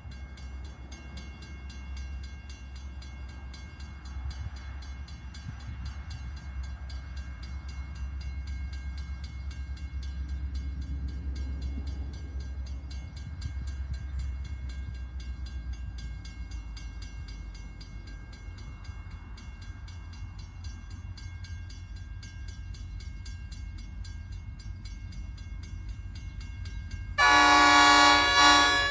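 Low rumble of an approaching diesel freight train, then near the end one loud blast of the locomotive's horn, about a second and a half long.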